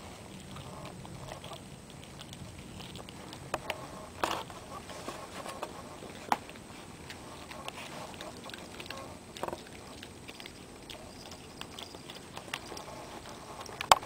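A small dog gnawing and chewing on a rawhide chew: a steady wet crackle of teeth working the hide, with a few sharp clicks and knocks scattered through, the loudest near the end.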